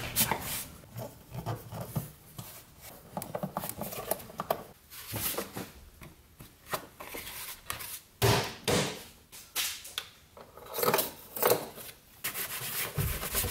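Hard plastic car parts rubbing, scraping and knocking as they are handled, the moulded plastic engine cover being lowered over the engine and pressed onto its mounts, with louder knocks around the middle and again near the end.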